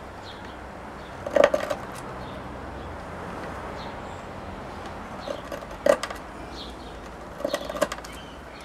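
Wood being cut from a small green twig: a few separate sharp knocks and cracks spread over several seconds, with faint bird chirps in the background.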